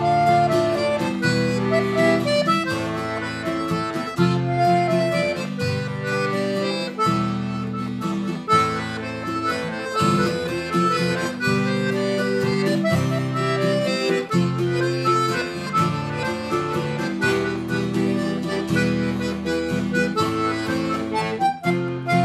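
Diatonic button accordion and acoustic guitar playing a brisk traditional waltz, the accordion carrying the melody over the guitar's plucked accompaniment.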